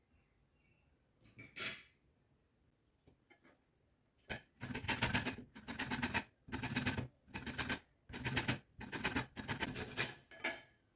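Lemon zest being grated on a flat handheld metal grater: a rhythmic run of about nine scraping strokes, each about half a second long, starting about four seconds in. A single short knock comes earlier, about a second and a half in.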